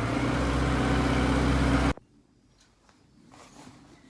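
Digger's engine running steadily during groundworks, cutting off abruptly about two seconds in; faint quiet follows.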